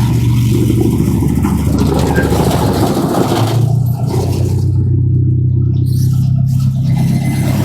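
Small amusement-park ride train running steadily along its track: an even low engine hum with rattling over it that thins out for a couple of seconds past the middle.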